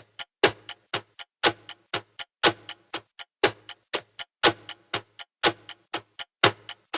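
Clock ticking steadily, with a loud tick once a second and fainter, quicker ticks in between.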